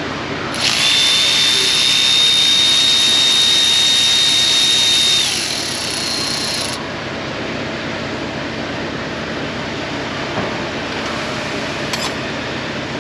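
Milwaukee cordless electric ratchet running for about four and a half seconds with a steady high whine, spinning out an alternator mounting bolt. A steady hum runs under it, and there are two light clicks near the end.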